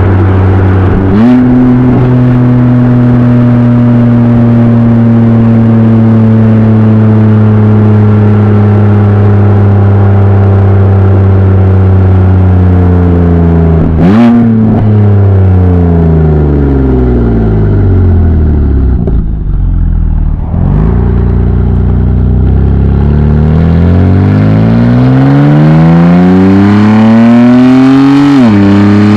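BMW M3/M4 (F80/F82) S55 twin-turbo straight-six exhaust, modified to be louder. It runs steady under way, its pitch jumps up twice as the engine is blipped or shifted down, falls slowly as the car slows, climbs as it accelerates, and drops suddenly near the end on an upshift.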